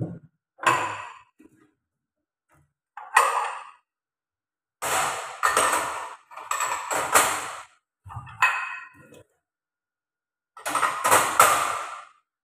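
White ceramic bowls handled at a kitchen sink: clinks and scrapes of crockery in about six separate bursts, each under two seconds long, with quiet gaps between.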